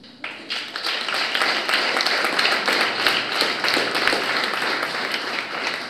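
Audience applauding, a dense patter of many hands clapping that starts just after the reading ends and tapers off near the end.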